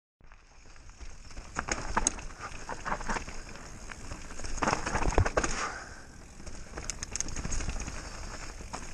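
Downhill mountain bike riding fast down a dirt forest trail: tyres rolling over dirt and dry leaves, with a stream of rattles and knocks from the bike over bumps, loudest around the middle, over a steady low rumble.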